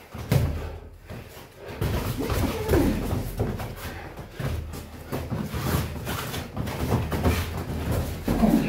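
Boxing gloves landing on gloves, headgear and body in a run of irregular thuds and slaps during heavyweight sparring.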